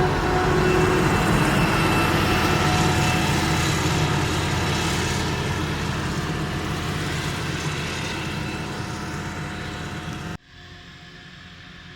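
Heavy farm machinery engines running steadily and fading slowly as they move off. About ten seconds in the sound cuts suddenly to a quieter, more distant engine.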